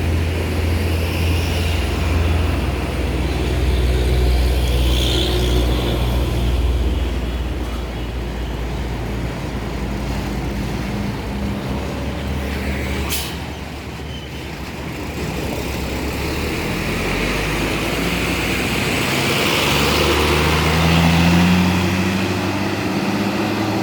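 Diesel tour bus engines running at low speed, with a brief sharp hiss about halfway through and an engine note rising near the end as a bus pulls away.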